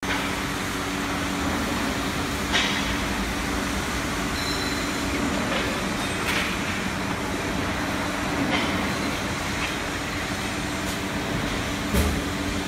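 Steady hum and noise of industrial machinery in a workshop, with a few sharp knocks, the loudest near the end.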